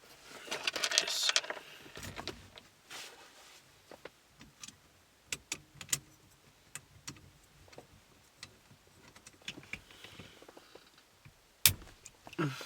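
Small metal parts and tools being handled while a steering wheel is bolted onto a quick-release hub: a jangling rattle near the start, then scattered clicks and taps of the bolts and key, and one sharp knock near the end.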